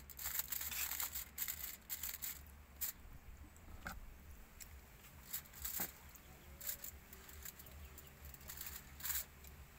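Aluminium foil crinkling and rustling as it is folded by hand around a food parcel, in irregular spurts that are busiest in the first three seconds, then a few isolated crinkles.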